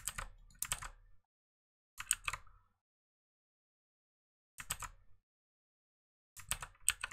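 Computer keyboard typing in four short bursts of a few sharp keystrokes each, with silence in between.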